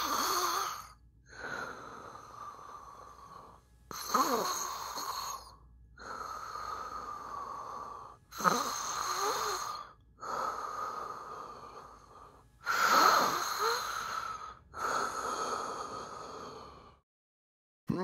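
A person snoring in a steady rhythm of about four breaths, one roughly every four seconds. Each breath is a louder, rougher burst followed by a longer, quieter, wheezy one.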